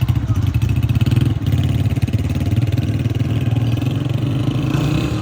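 Brand-new Honda CG125's single-cylinder four-stroke engine running steadily with an even, rapid exhaust pulse.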